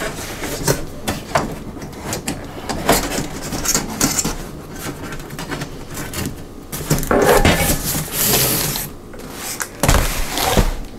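Cardboard packing being handled and slid about inside a popcorn machine's metal-framed glass cabinet: scraping and rustling with many light knocks and clicks, the longest scraping about two-thirds of the way through.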